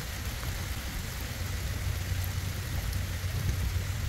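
Steady outdoor noise: an uneven low rumble with a hiss over it, typical of wind buffeting the microphone.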